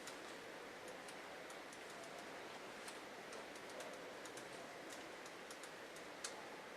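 Faint, irregular light clicks and taps over quiet room noise, with one sharper tap about six seconds in.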